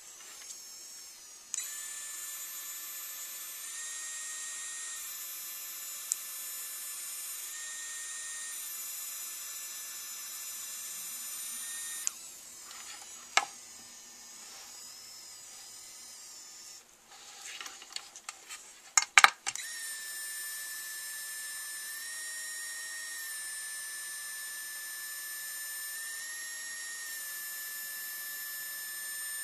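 A 3Doodler 3D printing pen's filament-feed motor whining steadily as it pushes out plastic, its pitch stepping slightly up and down. It stops about twelve seconds in, leaving a few clicks and knocks from handling, the loudest sharp knocks just before the whine starts again about twenty seconds in.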